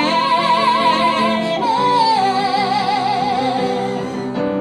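Singing in a live musical-theatre song: long held notes with vibrato, dropping to a lower held note about two seconds in, over instrumental accompaniment.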